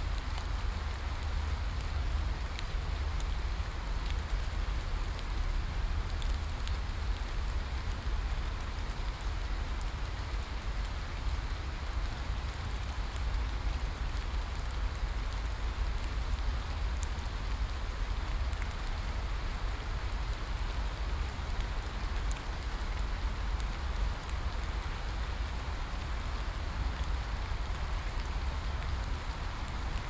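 Steady rain falling on forest foliage: an even hiss with a low rumble underneath and scattered ticks of single drops.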